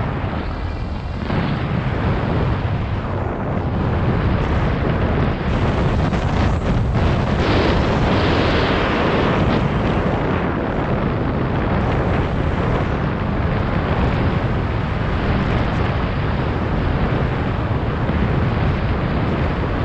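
Wind buffeting the microphone of a selfie-stick action camera in flight under a tandem paraglider: a loud, steady rushing rumble, a little stronger from about four to nine seconds in.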